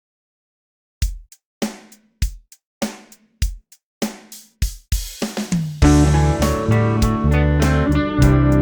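Backing track starting from silence: after about a second a drum kit plays steady single beats roughly every 0.6 s, then a quick fill, and about six seconds in the full band comes in with bass and guitar playing a chord progression.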